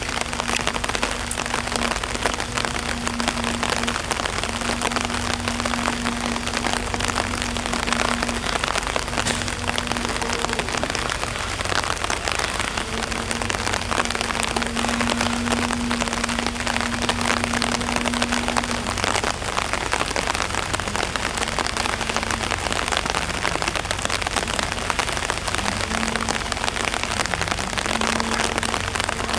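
Steady rain falling on a wet concrete enclosure, with a steady hum in the background that breaks off and returns several times.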